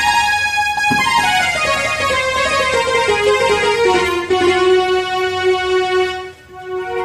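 Casio CT-X870IN electronic keyboard playing a single-line melody in one of its Indian-style string tones. The melody steps down in pitch and settles on a long held note, which breaks off briefly near the end.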